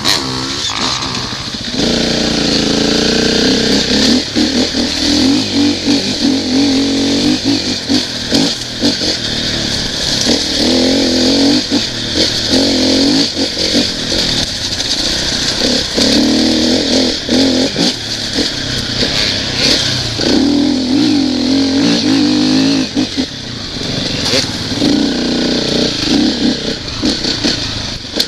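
Dirt bike engine under way on a rough trail, revving up and easing off again and again, over a steady rush of wind and riding noise with frequent short knocks.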